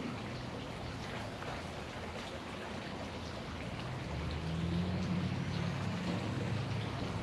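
A person chewing a sardine on a cracker, with crackly crunching over a steady background hiss. A low hum comes in about four seconds in.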